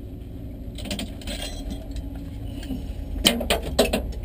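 Metallic clicks and rattles of a racing harness's buckle and strap fittings being handled and released, with louder clicks and knocks close to the microphone near the end as a hand reaches for the camera, over a steady low hum.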